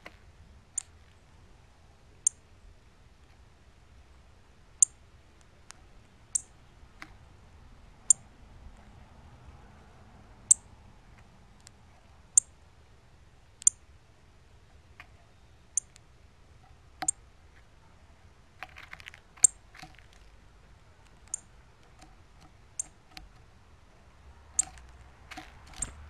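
Northern cardinal giving sharp, high chip calls, one about every one and a half to two seconds, with a brief flurry of softer clicks near two-thirds of the way through.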